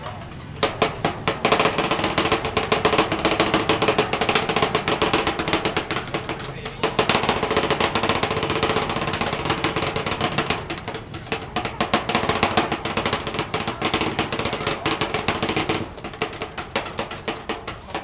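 Fast, continuous chopping: a blade or metal utensil striking a surface several times a second, with a brief pause about seven seconds in. It turns quieter and sparser near the end.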